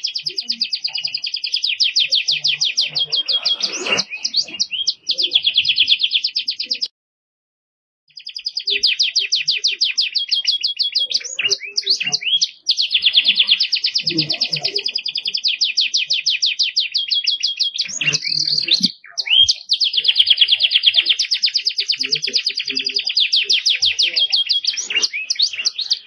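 Domestic canary singing long runs of rapid, high trills and rolls, with one short pause about seven seconds in.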